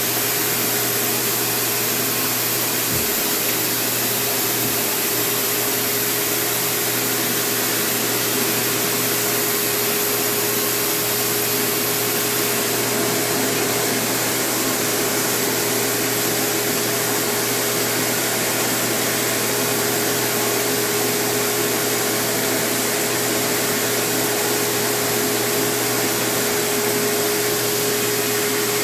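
Small blower motor running steadily, a constant whooshing hum with a steady whine, like a vacuum cleaner.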